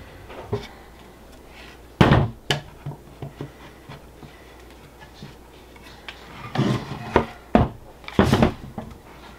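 Wooden boards knocking and clattering as finger-jointed cedar panels are lifted, set down and fitted together on a table. The sharpest knock comes about two seconds in, with a quicker cluster of knocks near the end.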